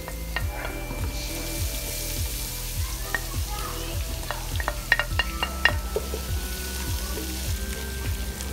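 Minced garlic and ginger sizzling as they drop into hot oil with sliced onions; the hiss grows stronger about a second in. A few sharp taps of a utensil against the pot come about five seconds in, and the mix is then stirred with a wooden spoon.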